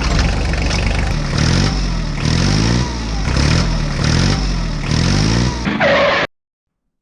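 Engine sound of an RC model tractor revving up and down in a repeating cycle, cutting off suddenly about six seconds in.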